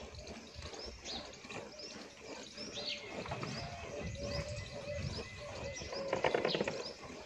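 A water buffalo being milked by hand into a steel pail: repeated squirts of milk at about two strokes a second, with small birds chirping.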